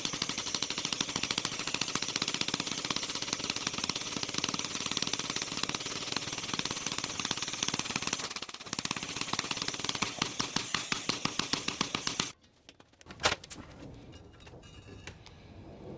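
Gas torch flame heating a crucible of copper, sputtering with loud rapid popping, which the owner puts down to a torch tip that needs cleaning. The torch cuts off suddenly about 12 seconds in, and a single sharp click follows a second later.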